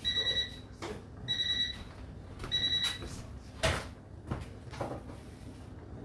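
An electronic beeper sounding three high, evenly spaced beeps a little over a second apart, followed by a few short knocks.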